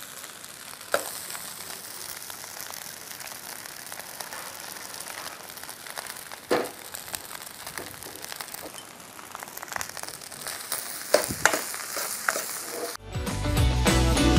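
Coconut fried rice sizzling steadily in a frying pan as it is stir-fried, with a few sharp knocks of the ladle against the pan. About a second before the end it cuts suddenly to music.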